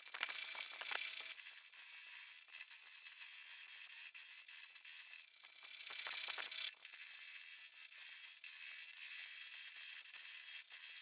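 Turning tool cutting a pine blank that spins off-centre in a multi-axis jig on a wood lathe: the interrupted cut makes a dense, hissing clatter of fine clicks. It eases off briefly just after the start and again about six seconds in.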